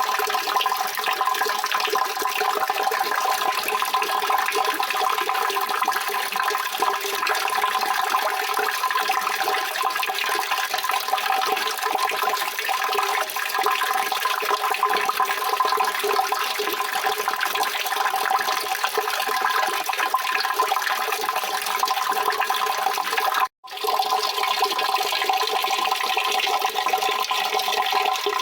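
Steady rushing water, an even dense splash with no let-up, cutting out for a split second about 23 seconds in and then carrying on unchanged.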